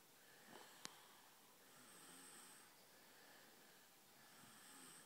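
A sleeper snoring faintly, with soft breaths in and out repeating about every two and a half seconds. There is a single sharp click about a second in.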